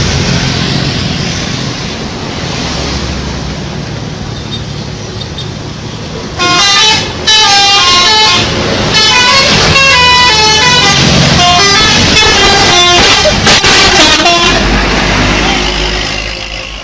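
Telolet musical air horn on a bus playing a quick tune of several jumping notes, with short breaks. It starts about six seconds in over bus engine and road noise and stops near the end, leaving a low engine rumble.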